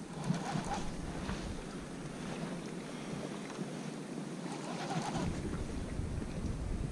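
Steady hiss of wind and rain over choppy reservoir water, with wind buffeting the microphone. Short rustling noises come about half a second in and again near the five-second mark.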